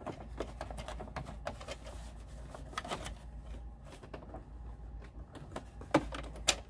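Cotton fabric and elastic being handled and positioned on a sewing machine bed, with irregular light rustles and small clicks and two sharper clicks near the end.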